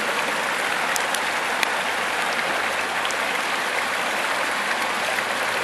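Purgatoire River water flowing, a steady even rush, with a few faint clicks a second or so in.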